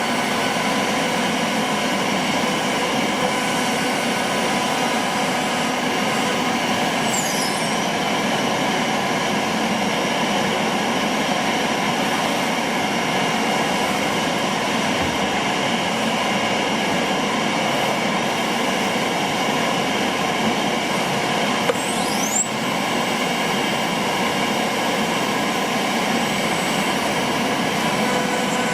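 A CNC router running: a steady mechanical hum and whine from the machine, its air-cooled spindle and vacuum table system, with brief high pitch sweeps twice, around a quarter of the way in and again past two-thirds.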